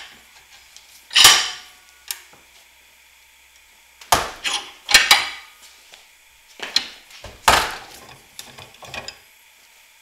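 Steel bench vise being cranked shut to crush a copper ring terminal onto heavy-gauge battery cable. It gives sharp metallic clanks and scrapes: one about a second in, then a run of them from about four to nine seconds in.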